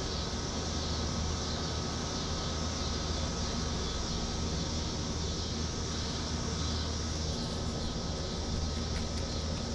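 Steady low machine hum with a hiss over it, unchanging throughout.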